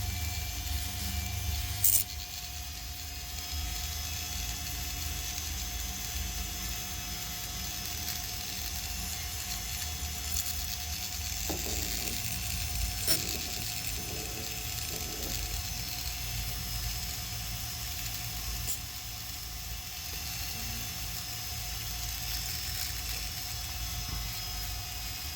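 Steady machine hum with a few light clicks, a sharp one about two seconds in.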